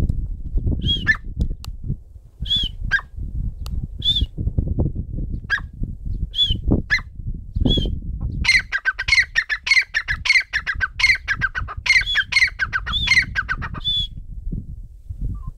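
Teetar (francolin) calling: single sharp calls about every second and a half, then, about halfway through, a fast run of repeated calls lasting some five seconds. Low rumbling noise sits under the first half.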